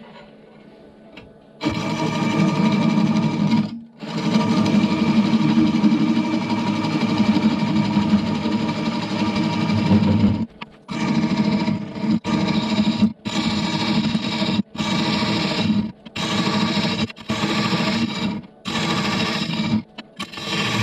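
Square carbide scraper cutting the outside of a spinning apple-wood bowl on a Rikon wood lathe, a loud buzzing scrape. It starts after a quiet first second or so, runs long with a brief lift-off near four seconds, then comes in short passes of about a second each with short breaks.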